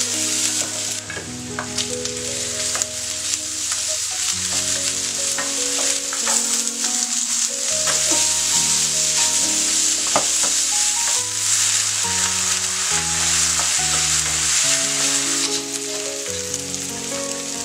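Rice and vegetables sizzling steadily in a hot frying pan as they are stir-fried, with a few sharp ticks from stirring. Gentle instrumental background music plays underneath.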